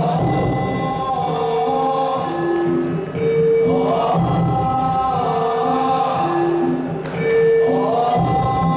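Sundanese dogdog percussion ensemble performing, with a group of voices singing or chanting over a melody of held notes. The group's voices swell in roughly every four seconds.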